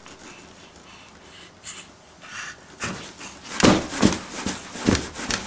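A baby's excited breathy huffs: a quiet start, then four or five short huffs in the second half.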